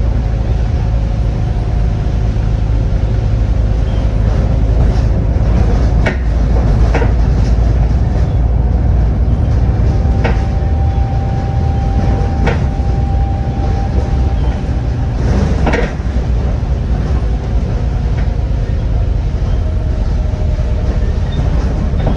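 Volvo B7TL double-decker bus on the move: a steady low engine drone with a faint whining tone that shifts in pitch, and a few sharp knocks and rattles.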